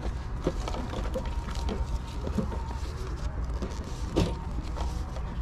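Soft rustling and scattered small clicks as gloves and their plastic hang-tags are handled and a glove is pulled onto a hand, with a louder click about four seconds in, over a steady low rumble.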